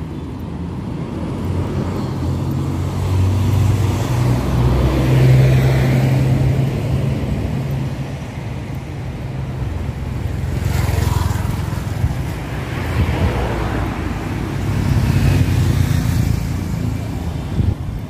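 Road traffic: motor vehicles passing on the street, a low engine hum that swells to its loudest about five seconds in and rises again twice, in the middle and near the end.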